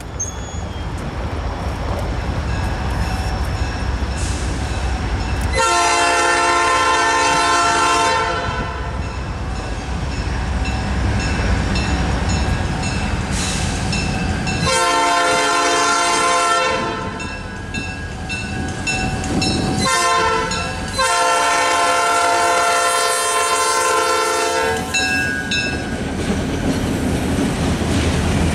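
Diesel locomotive air horn sounding the grade-crossing signal: two long blasts, a short one, then a long one, each a chord of several notes. Under it the locomotives' diesel engines rumble steadily as the train approaches, louder near the end as the units reach the crossing.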